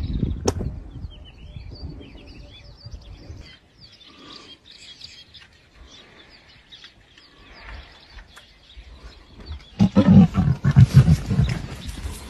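Lioness growling, a string of low, pulsing snarls about ten seconds in. Birds chirp faintly in the first few seconds.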